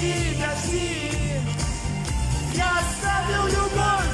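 Male vocalist singing live into a handheld microphone over a pop song's backing music with a steady bass line, heard through the concert hall's sound system.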